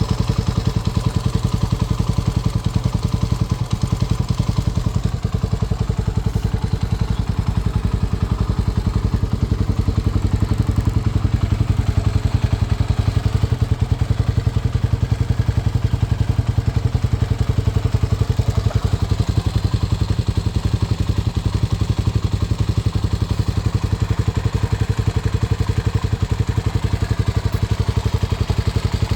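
Honda CBX125F's air-cooled single-cylinder RFVC DOHC four-stroke engine idling steadily, at a stable, even beat with no revving.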